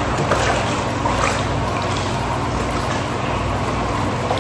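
Water sloshing and lapping in a small plastic paddling pool as a child moves through it, over a steady low hum.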